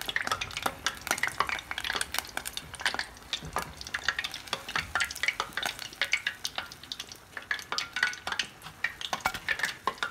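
Hot oil crackling and sizzling with many irregular small pops, from battered boiled eggs deep-frying.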